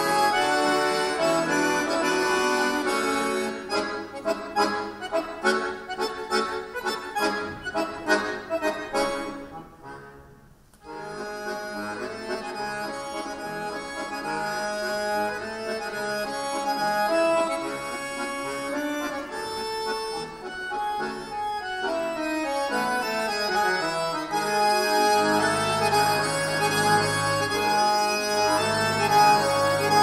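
Two button accordions playing a duet. Held chords give way to short, rapidly repeated chords that fade almost to silence about ten seconds in, then the music comes back quietly with held notes. A descending run follows around twenty seconds in, and fuller chords with deep bass notes come near the end.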